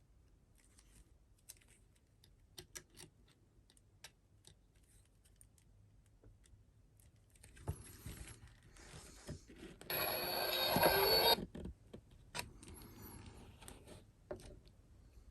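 Small clicks and handling noises of a paper ticket folder, then about ten seconds in a buzzy electronic tone from the ticket's built-in sound chip, lasting about a second and a half before cutting off suddenly.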